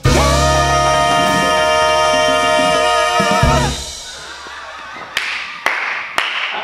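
Vocal trio and swing jazz quintet (trumpet, saxophone, piano, bass, drums) hitting and holding the song's final chord, the voices wavering with vibrato, cut off after about three and a half seconds. Then quieter room sound with three sharp clicks about half a second apart.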